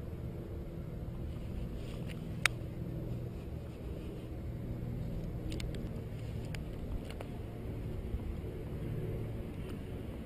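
Bicycle riding over a rough dike path: a steady low rumble of tyres and wind, with a few sharp clicks and rattles from the bike, the loudest about two and a half seconds in.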